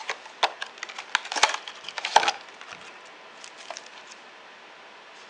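Clear plastic packaging crackling and clicking as it is pried open and handled: a busy run of sharp crackles over the first two seconds or so, then only a few faint ticks.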